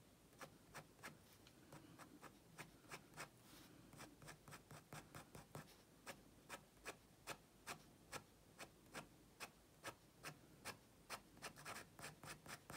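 Fine-tip black marker scratching short hatching strokes on heavy paper, faint, at about three strokes a second, quickening near the end.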